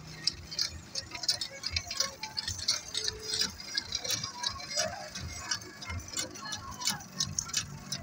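Rapid, uneven mechanical ticking and clicking, several clicks a second, over a faint low engine hum.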